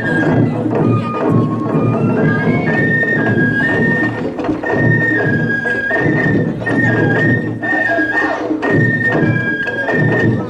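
Wadaiko (Japanese taiko drums) played by an ensemble in a steady stream of strokes, with a high melody of held notes stepping up and down above the drumming.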